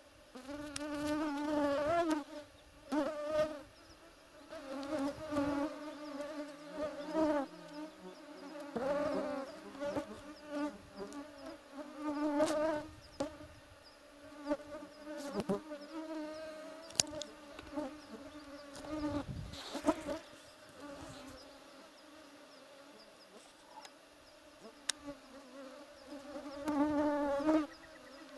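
A flying insect buzzing, its hum swelling and fading in repeated passes with the pitch wavering up and down.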